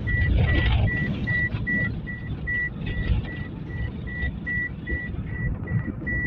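Low rumble of a vehicle driving, heard from inside it, with a steady high electronic beep repeating about two and a half times a second.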